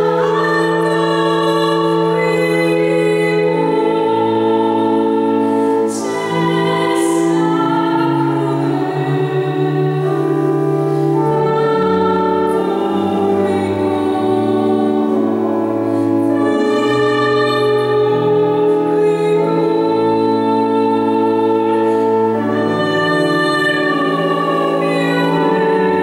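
Pipe organ accompanying a woman singing a slow Italian art song, the organ holding sustained chords over a moving bass line while her voice carries the melody with vibrato, in the reverberant church.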